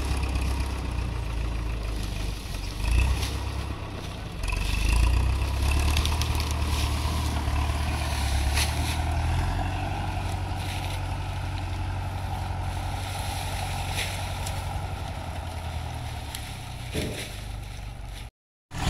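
Engine running with a steady low hum, with scraping and a few knocks over it. The sound cuts out briefly near the end.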